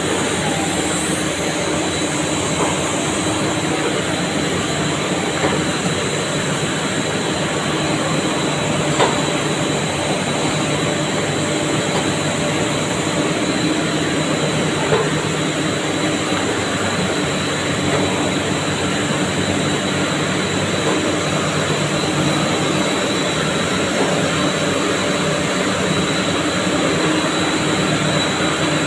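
Hollow plastic board production machinery running steadily: a continuous mechanical hum with a thin high whine, broken by a couple of sharp clicks.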